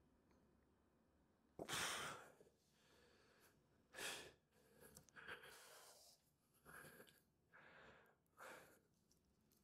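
A person's faint, sharp breaths, a series of short exhalations. The first, about two seconds in, is the loudest, and another strong one follows about two seconds later.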